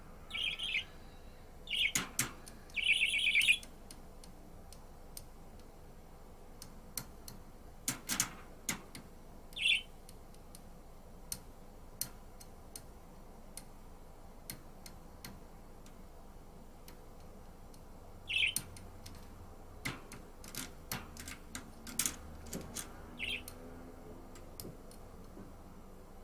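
Budgerigar giving short, shrill chirps in a few scattered bursts, loudest a couple of seconds in, with many sharp clicks and taps in between.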